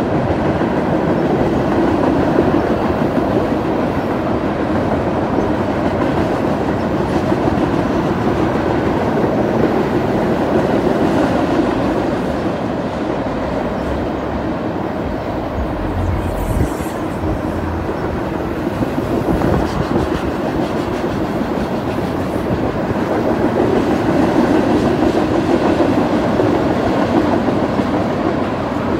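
Freight train cars rolling past in a steady rumble of steel wheels on rail, with clickety-clack from the rail joints.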